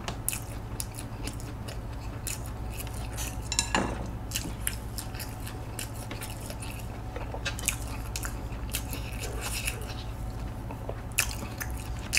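Close-miked chewing and biting of a sugar-coated fried Korean hot dog (corn dog), with wet mouth sounds and scattered small clicks and taps, over a steady low hum.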